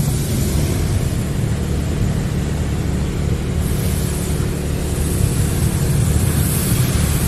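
Water spray from a monorail in-bay automatic car wash beating on the car, heard from inside the cabin as a steady low rumble under a hiss. The hiss gets sharper about halfway through as the spray moves along the car.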